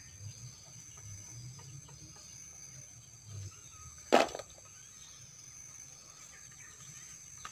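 Steady high-pitched insect drone with light rustling and handling of chili plant leaves. One sharp thump about four seconds in is the loudest sound.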